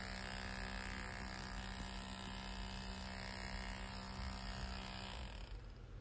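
Corded Bosch SDS+ hammer drill running on hammer action only, its square box cutter chiselling out the corners of a socket-box hole in breeze block. A low, steady hum that stops about five seconds in.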